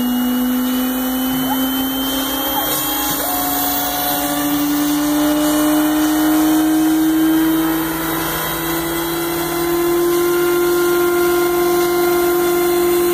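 AXYZ 6010 CNC router's 5 HP HSD spindle cutting a straight line through a scrap board as the gantry moves along it: a steady whine that slowly rises in pitch, over a constant noisy hiss.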